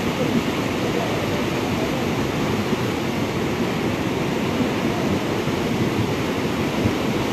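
Muddy floodwater of a river in spate rushing and churning past in a steady, unbroken wash of noise.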